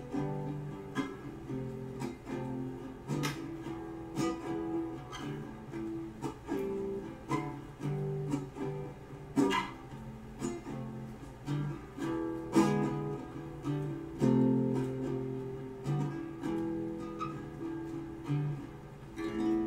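Caramel guitalele, strung with three nylon and three metal strings, played as a run of plucked chords and single notes, with a few louder strummed chords partway through.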